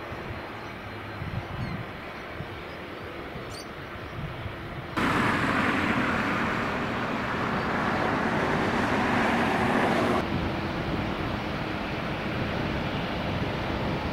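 Jet airliner engine noise at a runway, a steady rushing rumble. A louder, brighter stretch of the noise starts abruptly about five seconds in and stops just as abruptly some five seconds later.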